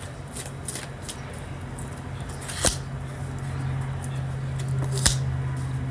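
Tarot cards being handled on a table: a few sharp taps and clicks, the loudest about halfway through, over a steady low hum.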